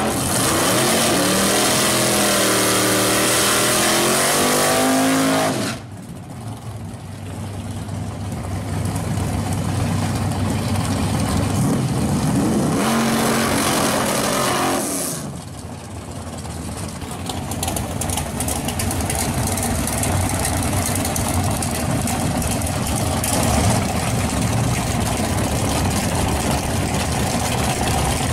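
Modified G-body Chevrolet Monte Carlo drag car's engine revving hard at the drag-strip starting line, its pitch rising and falling. The sound drops off suddenly about six seconds in, comes back in a short burst of revs around the middle, then settles into a steady loud run.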